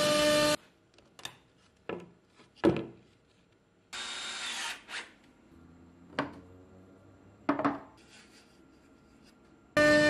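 CNC router spindle running with a steady high whine, cut off abruptly about half a second in. Then a few light knocks and clinks as steel tool holders fitted with router bits are handled and set into a tool rack, with a short scraping noise near the middle. The spindle whine returns abruptly near the end as the router cuts again.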